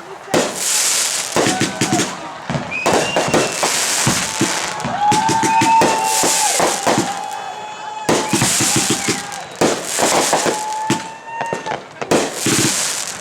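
Neighbourhood consumer fireworks going off in dense, irregular, overlapping bangs and crackles throughout.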